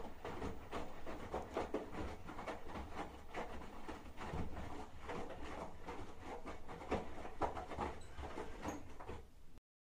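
Front-loading washing machine washing: laundry and soapy water sloshing and thudding as the drum turns, over a low motor rumble. The sound cuts off suddenly near the end.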